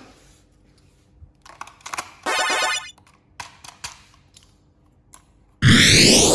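Small clicks and rattles of plastic toy parts being handled, with a short buzzing rattle about two seconds in. Near the end comes a loud sweeping whoosh sound effect.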